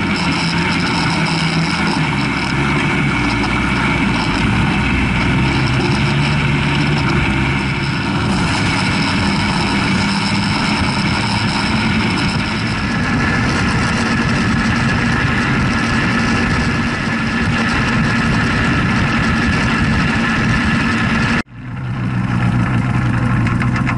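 Sherp amphibious ATV's Kubota four-cylinder diesel engine running steadily as the machine drives over snow, with wind and tyre noise at an outside-mounted camera. The sound cuts out for a moment near the end and comes back.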